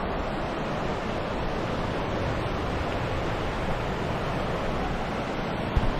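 Steady rushing wind noise on the microphone, with a brief low thump near the end.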